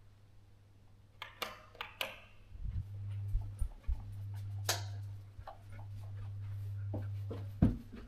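Footsteps of someone walking through an empty house: a few light taps and clicks, a low steady hum setting in, then heavier footfalls on bare wooden stair treads starting near the end.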